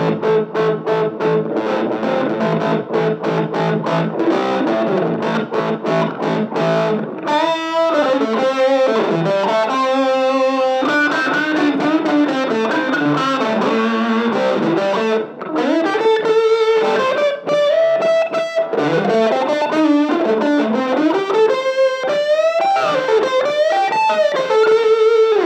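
Oscar Schmidt OS-50 electric guitar played through a Fender Mustang LT25 modelling amp on its 'Desert Rock' preset: quick repeated chord strums for the first several seconds, then single-note blues-rock licks with string bends.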